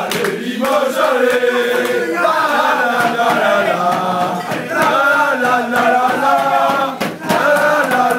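A crowd of male supporters chanting a song together in unison, loud and close, with a few sharp hits among the singing.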